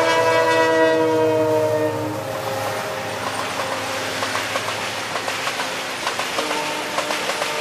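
WDG4 diesel-electric freight locomotive's horn blaring as it passes, its pitch dipping slightly before it cuts off about two seconds in. Then the rumble and steady clickety-clack of the freight wagons' wheels over the rail joints.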